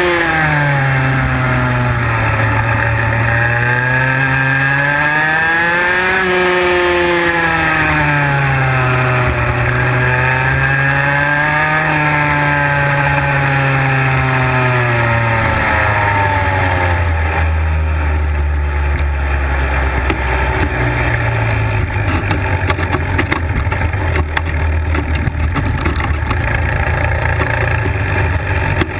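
IAME X30 125cc two-stroke kart engine heard onboard. The revs fall and rise twice over the first dozen seconds, then drop after about 17 s to a low, near-idle rumble.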